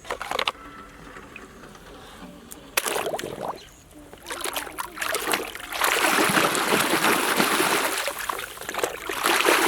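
Running water trickling and splashing over a muddy toy vehicle as it is rinsed, coming in about four seconds in and then running steadily, after a few short knocks and clicks of handling.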